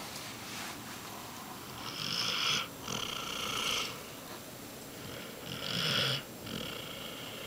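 A sleeping Basset Hound snoring: two snores about three and a half seconds apart, each a pair of noisy breaths.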